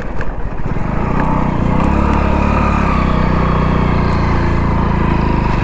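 Hero Splendor's single-cylinder four-stroke engine running under way as the motorcycle is ridden. It picks up over the first second or so, then holds a steady note.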